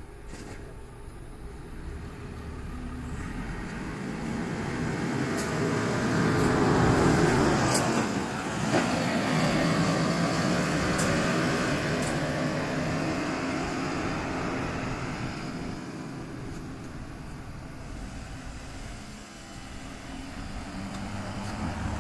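A vehicle passing close by: it approaches, is loudest about seven to ten seconds in, then fades away, with a few faint clicks as it goes past.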